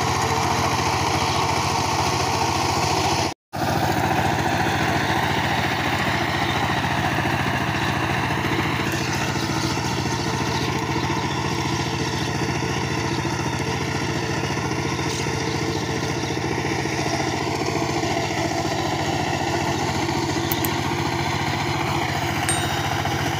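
Two-wheel power tiller's single-cylinder diesel engine running steadily under load as its rotary blades churn stubble field soil. The sound cuts out for an instant about three and a half seconds in.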